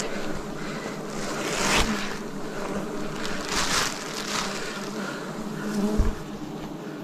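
A swarm of wild bees buzzing steadily, with bursts of rustling about two and four seconds in and a sharp knock about six seconds in.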